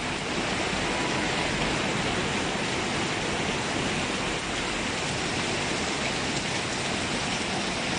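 Heavy rain pouring steadily, a dense, even hiss with no let-up.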